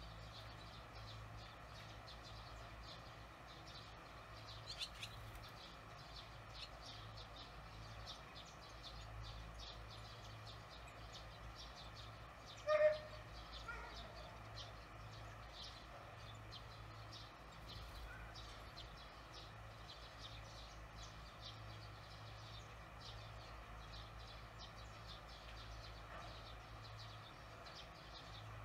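Barn swallow at its mud nest giving a single short call about halfway through, with a fainter chirp earlier and soft high ticks scattered throughout, over a low steady hum.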